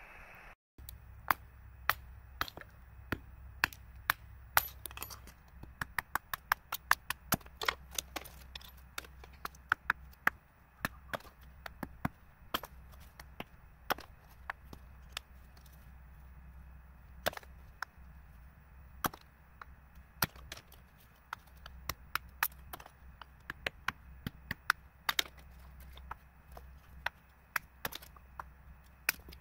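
Hammer striking a chisel in sharp taps, irregular, with some quick runs of several blows a second.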